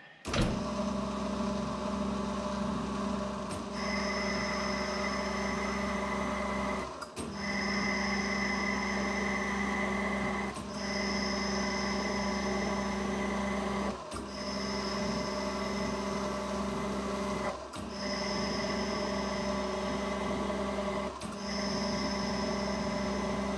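Metal lathe running under power feed while an insert cuts a 20 × 1.5 mm thread, pass after pass: a steady gear whine with higher steady tones from the cut. The sound breaks off briefly about every three and a half seconds.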